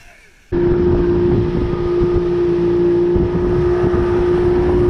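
Boat's outboard motor running steadily at speed: a steady hum over a rough low rumble. It cuts in suddenly about half a second in.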